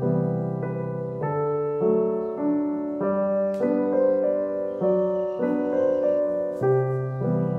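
Background piano music, with notes and chords changing every half second to a second.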